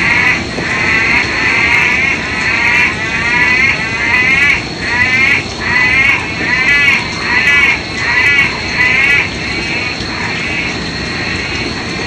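Loud chorus of frogs calling with pulsed, trilling calls. The calls overlap at first, then come as separate short calls about twice a second through the middle, and blend back into a steady chorus near the end.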